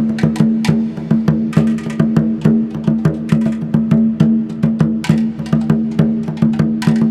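Percussion music in the style of ancient Mexican sounds: a fast, even run of pitched wooden drum strokes, several a second, each ringing low.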